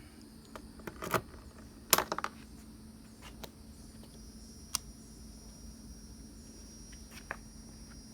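Scattered sharp clicks and light knocks from handling the 125cc ATV's key and controls before starting, with a quick rattle of clicks about two seconds in. The engine is not running: the starter has not engaged because the brake safety switch is not pressed.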